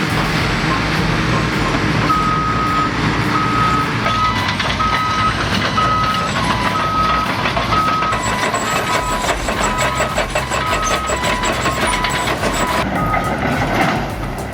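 Heavy earthmoving machine running, with its reversing alarm beeping in two alternating pitches about twice a second; the beeping starts about two seconds in and stops near the end.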